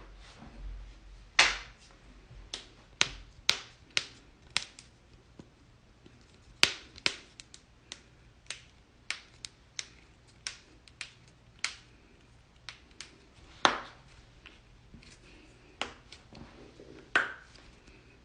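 Joints cracking: a long run of sharp pops and clicks at uneven intervals, a few loud cracks among many quieter ones.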